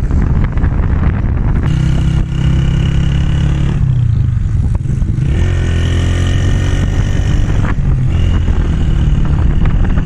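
Motorcycle engine running while riding downhill, its note dropping about four seconds in and climbing again, under heavy wind rushing over the microphone.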